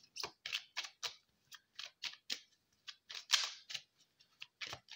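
A deck of oracle cards being shuffled in the hands: a run of crisp card slaps and flicks, about three a second in an uneven rhythm, the loudest a little past three seconds in.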